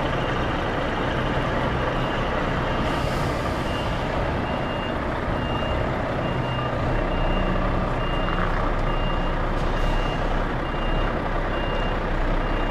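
An HGV lorry's reversing alarm beeping about twice a second as the truck backs up, over the steady running of its diesel engine, with a brief hiss about three seconds in.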